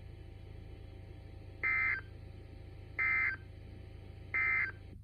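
NOAA Weather Radio SAME end-of-message data bursts: three short, identical electronic tone bursts about 1.3 seconds apart, which mark the end of the emergency alert broadcast. A faint steady hum runs underneath.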